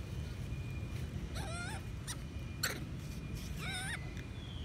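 Young long-tailed macaque calling twice, about two seconds apart: short, high, wavering squeals. Two sharp clicks fall between the calls.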